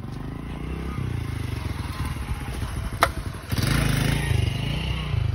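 An engine running steadily, getting louder about two-thirds of the way in, with a single sharp click just before that.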